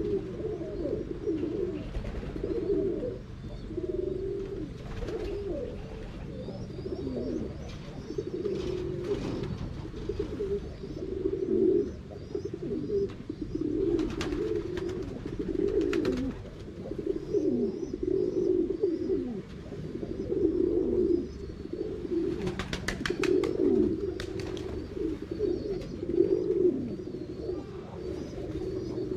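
Several pigeons cooing continuously, their low coos overlapping one another. Faint high chirps sound above them, and a brief rapid clatter comes about three-quarters of the way through.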